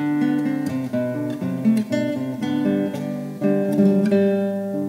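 Background music on acoustic guitar, a run of plucked notes and chords.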